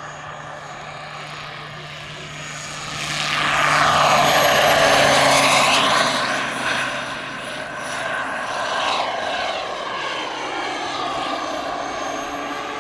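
Turbine-powered 1:5 scale RC Bell AH-1W Super Cobra model helicopter in flight: a steady high turbine whine mixed with main-rotor blade noise. It grows loud as the model passes close by about three to six seconds in, the pitch sweeping as it goes past, then settles lower as it climbs away.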